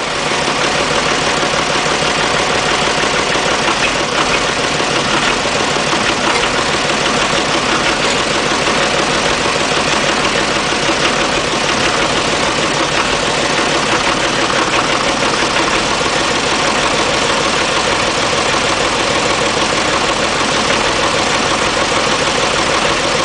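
An engine idling steadily, loud and even throughout.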